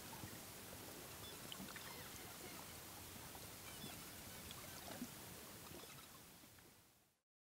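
Faint underwater ambience: a steady hiss with scattered small crackles and clicks. It fades away near the end and stops.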